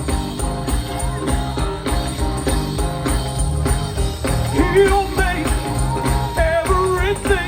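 Live gospel band music with a steady beat and jingling percussion; a singer's voice comes in about halfway through.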